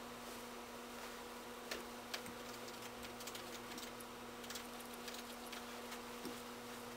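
Quiet room tone with a steady low hum, broken by a few faint clicks and rustles of hands handling fly-tying materials at a vise; the two clearest clicks come about two seconds in.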